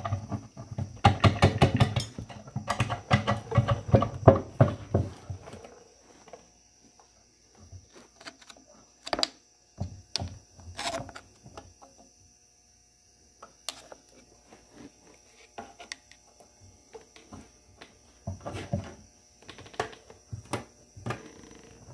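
A screwdriver scraping and prying at the seam of a tractor's oil pan. A quick run of scraping strokes lasts about the first five seconds, then scattered clicks and knocks of metal on metal follow.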